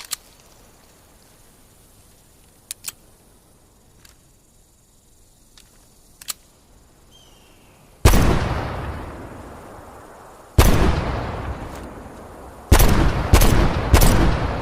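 Magnum revolver fired five times: one shot, another about two and a half seconds later, then three quick shots close together, each loud report followed by a long fading echo. A few sharp clicks come before the first shot.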